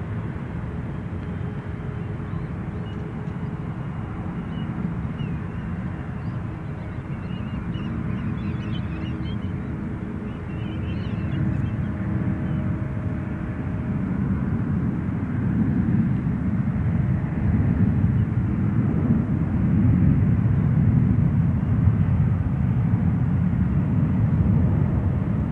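Jet engines of a Boeing 777-200 at takeoff power during its takeoff roll: a low rumble that grows louder over the second half as the airliner speeds past.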